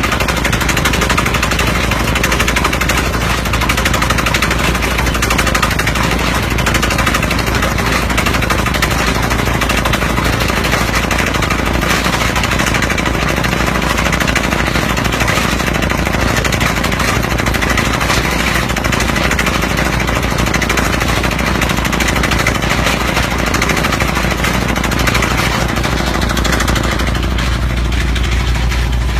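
Pneumatic air hammer of a well-drilling rig pounding rapidly into hard rock over a steady engine drone. The hammering dies away a couple of seconds before the end, leaving the engine running.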